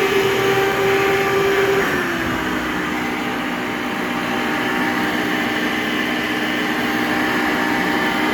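Hoover Breathe Easy upright vacuum's 7.3-amp direct-air motor running with a steady whine; about two seconds in the pitch drops and settles lower, then holds steady.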